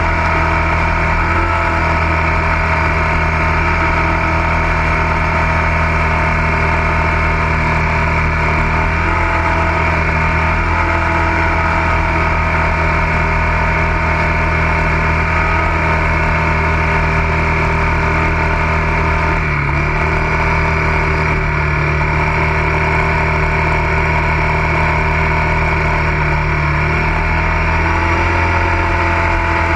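ATV engine running at a steady, unchanging pitch, loud and even throughout.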